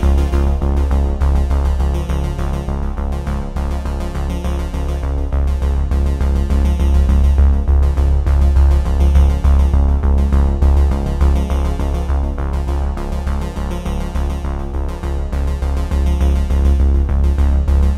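Background music with a strong, steady bass.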